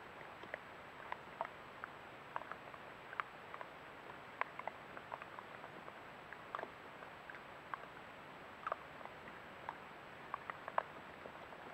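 Trail-camera field recording: a steady hiss with small, sharp clicks and ticks scattered irregularly, a few each second.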